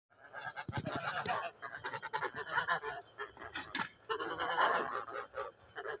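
A flock of domestic grey geese honking, with many calls overlapping.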